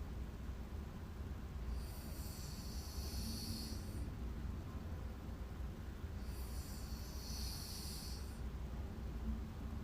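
A sleeping woman snoring lightly: slow, airy breaths about every four seconds, each lasting around two seconds, two of them here, over a steady low hum.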